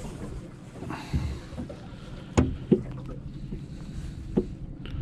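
Handling noise in an aluminium fishing boat: a few sharp knocks and taps, the loudest about halfway through, over a low steady hum.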